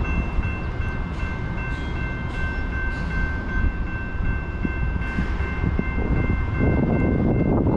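Railroad grade-crossing warning bell ringing steadily, with a low rumble underneath; wind buffets the microphone more loudly near the end.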